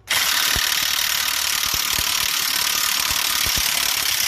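Impact wrench hammering continuously on the 35 mm front hub nut of a 2000 Lincoln Town Car to break it loose. It starts suddenly, runs hard for about four seconds and cuts off at the end.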